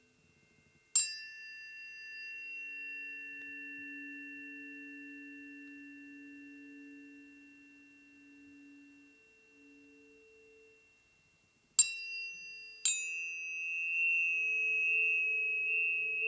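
Planetary tuning forks struck and left ringing: one strike about a second in rings out with a high, slowly fading tone, then two more strikes near the end start a fresh, louder high tone. Lower, softer tones hum steadily beneath.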